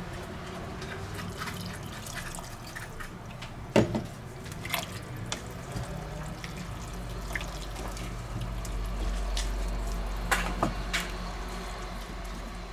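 Chopped leek and minced meat being stirred with a wooden spoon in a stainless steel pot with a little water, a wet squelching and bubbling, with scattered clicks and two sharper knocks of the spoon against the pot. A steady low hum runs underneath.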